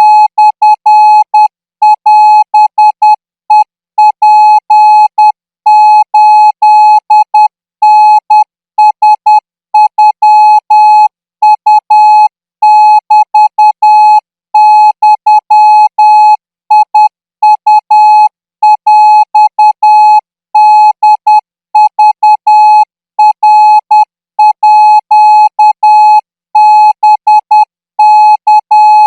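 Morse code practice signal: a single steady electronic beep tone keyed on and off in dots and dashes, sent at 14 words per minute.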